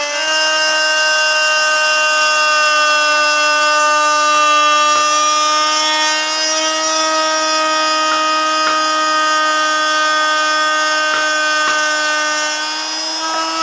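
Modern M-2850 plunge router running with a 4 mm slotting bit, cutting letter grooves into a wooden board: a loud, steady whine, with a brief dip near the end.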